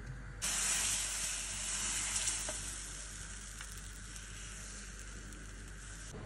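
Pancake batter sizzling as it is poured into a hot, oiled frying pan: a sudden loud sizzle starts about half a second in and slowly dies down.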